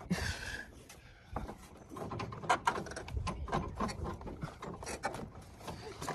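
Irregular clicks, knocks and rubbing of hands working a riding-mower deck belt around its pulleys and belt guides, with metal parts clattering now and then.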